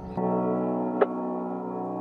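Background music: soft sustained chords, with a single short bright note about a second in.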